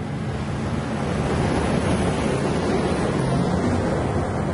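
NJ Transit bi-level commuter train passing close along the platform: a steady rush of wheels on rail and moving air with a low hum, at its loudest in the middle and easing off near the end as the last car clears.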